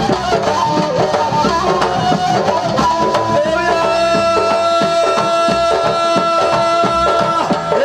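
Live band music in a North African folk style: hand drums beating a quick rhythm under a melody line that holds one long note from about three and a half seconds in until near the end.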